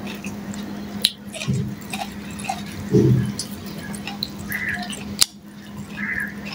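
Wet chewing and lip-smacking of a person eating mouthfuls of rice by hand, full of small mouth clicks, with two sharper clicks, one about a second in and one about five seconds in. A low steady hum runs underneath.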